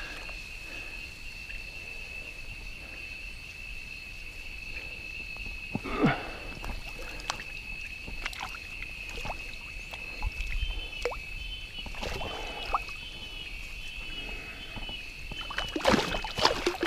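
Muddy marsh water sloshing and splashing as hands grab an arrow-shot curimba fish among the weeds, with one splash about six seconds in, a few more around the middle and a flurry near the end. Insects drone steadily at a high pitch throughout.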